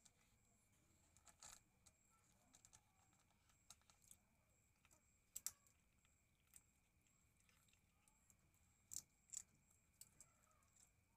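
Calico cat eating dry kibble and fried milkfish from a plastic bowl: faint scattered crunches and clicks of chewing, with a few sharper clicks about halfway through and two more near the end.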